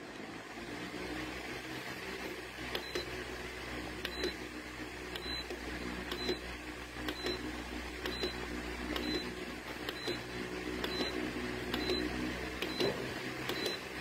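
V-Guard Esfera pedestal fan running with a steady motor hum and rush of air, while its control panel gives a short high beep at each button press, about one a second from around three seconds in, roughly a dozen in all.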